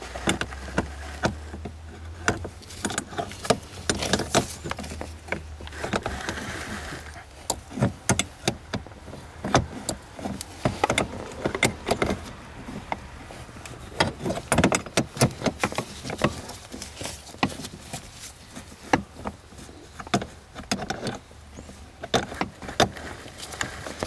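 Irregular metallic clicks and taps of a 17 mm wrench turning a stiff nut on the hood release cable bracket under a car's dashboard.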